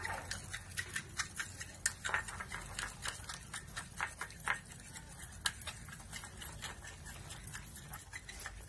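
A knife stirring and scraping a sticky aloe vera gel and toothpaste mixture in a small glass bowl: irregular quick clicks and taps of the blade against the glass.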